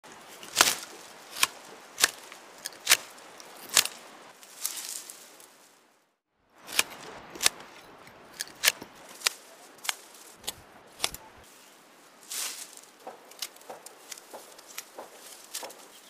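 Dry rapeseed stalks being cut by hand at harvest: a run of sharp cracks, about one a second, with rustling of the dry stalks between them. There is a short break in the sound about six seconds in.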